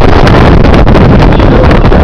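Strong wind buffeting the camera microphone over loud, deep bass from a Sundown Audio SA-12 12-inch subwoofer in a pickup truck, the recording overloaded throughout.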